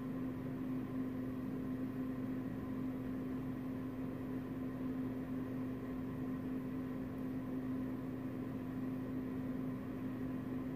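Steady background hum: one constant low tone over a soft, even hiss, unchanging throughout.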